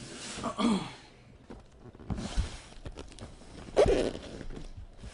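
Cardboard trading-card box being handled: rubbing and scraping of cardboard with a few light clicks, and a thump just before four seconds in.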